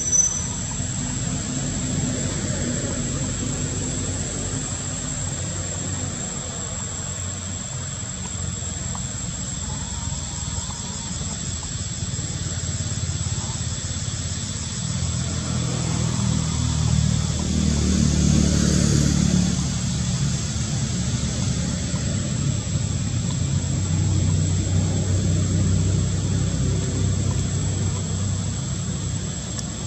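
A motor vehicle's engine running, its low rumble swelling to a peak about halfway through and rising again later.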